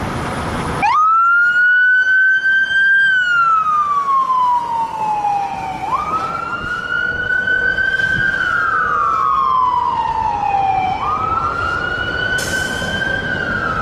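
Fire truck siren wailing. Each cycle rises quickly to a high pitch, holds briefly, then falls slowly, repeating about every five seconds, three times.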